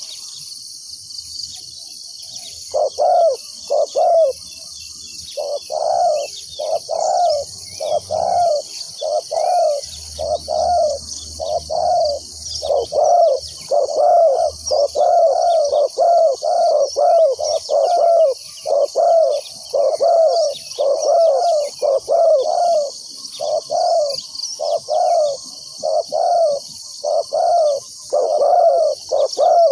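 Spotted dove cooing over and over, a decoy bird calling to lure wild doves. After a short pause at the start, the coos come about one a second, nearly without break, over a steady high-pitched drone.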